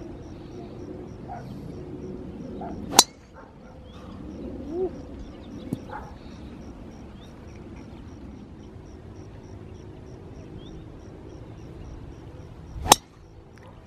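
Two golf tee shots with drivers, each a brief swish and then a sharp metallic crack as the clubhead strikes the ball, one about three seconds in and one near the end.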